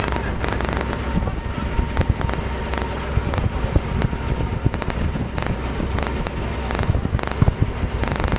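Outdoor noise dominated by wind buffeting the microphone: a steady low rumble broken by many irregular sharp crackles, with a faint steady whine underneath.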